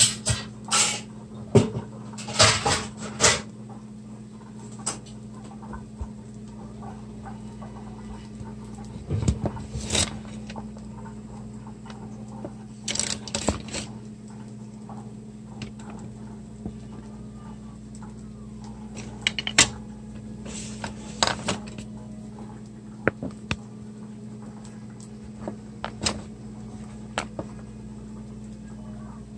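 Kitchen work sounds: scattered knocks and clatters of dishes, pans and utensils being handled, over a steady low hum.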